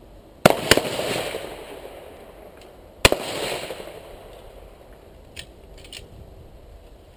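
Rifle shots at a shooting range: a sharp report about half a second in, quickly followed by a second crack, and another shot about three seconds in, each trailing off in a rolling echo. A few light clicks follow near the end.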